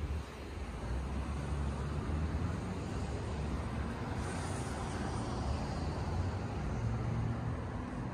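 Road traffic going by on a nearby street: a steady, low rumble of engines and tyres.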